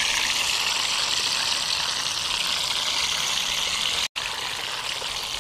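Whole watermelon sizzling in a kadai of hot oil: a steady, high hiss as the water in the fruit boils off in the oil. The sound drops out for a moment about four seconds in.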